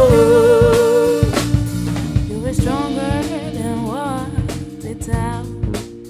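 Soul song played live by a band, drum kit, bass, guitars and keyboard, with a female lead singer. She holds a long sung note for the first second or so, then sings wordless runs over the band.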